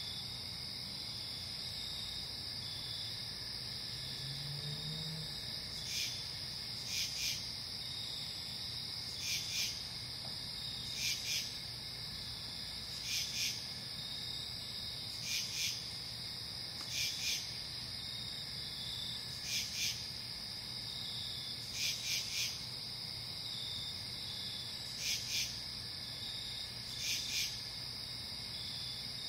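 Night insect chorus: a steady high-pitched trill, with a louder chirp of two quick pulses repeating about every two seconds.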